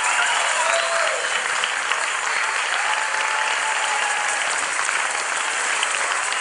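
Large auditorium audience applauding steadily, with a few voices calling out over the clapping.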